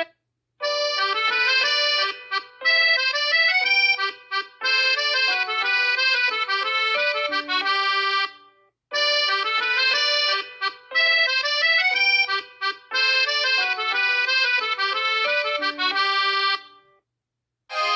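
Huawei P30 Lite ringtone: a bright melody of many quick notes, played through twice with a short break between. Near the end a different ringtone starts.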